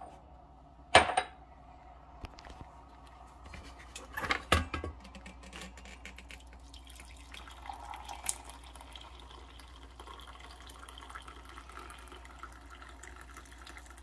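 Coffee poured from a stainless-steel thermal carafe into a ceramic mug, a faint steady trickle through the second half. A sharp click about a second in and a few clinks around four seconds in as the carafe is lifted and handled.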